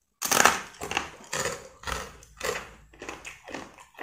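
A close-miked bite into a crispy homemade fried rice cracker (kerupuk nasi), with a loud crunch about a quarter second in, then crunchy chewing at about two crunches a second.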